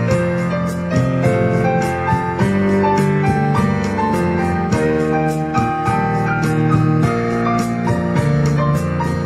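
Background piano music, a melody over chords.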